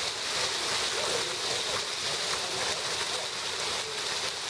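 Heavy rain mixed with small hail falling steadily: a dense, even hiss of countless tiny impacts on car bodywork and pavement.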